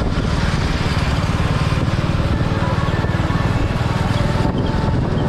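Royal Enfield motorcycle engine running steadily at road speed, a rapid even exhaust beat, heard from on the moving bike with wind and road rush.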